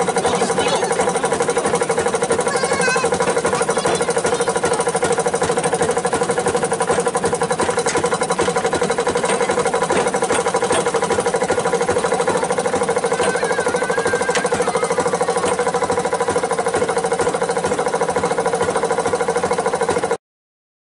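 Engine of a small rail motor car running steadily with a fast, even pulse as the car creeps slowly along the track. The sound cuts off suddenly near the end.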